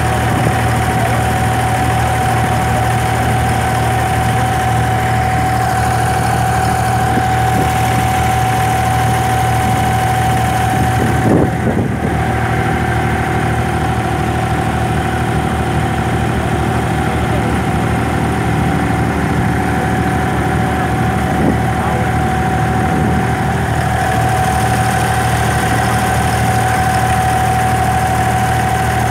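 Inboard diesel engine of a Dubai Creek abra water taxi running steadily under way, a constant low hum with a steady whine over it. A brief knock about eleven seconds in.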